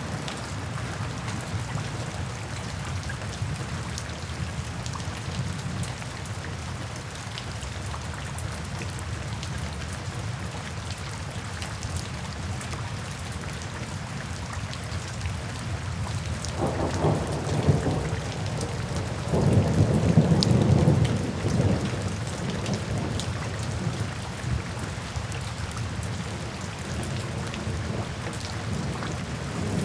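Steady rain falling, with thunder rumbling twice past the middle, the second rumble longer and louder.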